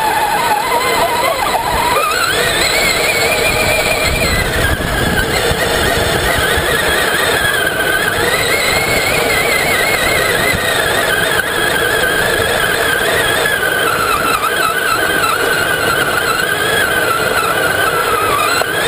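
Electric motor and gear drivetrain of a Traxxas Summit RC 4x4 truck whining as it drives over sand. The pitch climbs steeply about two seconds in, then falls and wavers up and down with the throttle, over a steady rushing noise.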